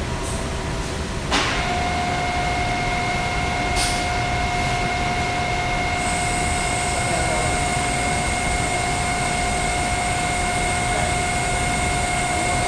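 Steady machine-shop noise: a constant rumble of running machinery. A click comes about a second in, then a steady whine sets in and holds, with a thin high tone joining about halfway through.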